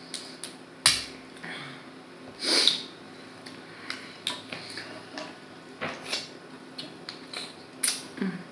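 Eating sounds at the table: scattered small clicks and cracks of crab shell being broken and picked apart by hand, with chewing, one sharper crack about a second in and a short breathy slurp about two and a half seconds in.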